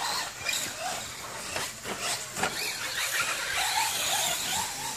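Radio-controlled short course trucks running on a dirt track: a high-pitched motor whine mixed with tyre and dirt noise, with brief clatters as the trucks hit the track.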